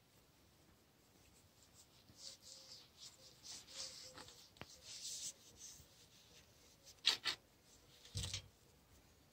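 A cloth rubbed over an M95 bayonet's blade and wooden grip in a series of short wiping strokes, followed by two sharper knocks near the end as the bayonet is handled.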